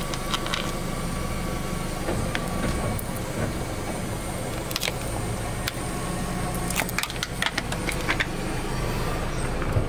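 A car tyre rolls slowly over a hard plastic toy, which cracks and snaps in a few sharp breaks, most of them seven to eight seconds in. A car engine idles steadily underneath.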